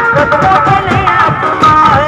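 A banjo band playing a Bollywood-style tune loudly, with a melody line over steady drumming.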